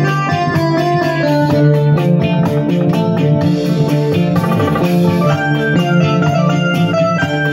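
Electronic keyboard playing an instrumental tune over a steady drum-kit backing beat.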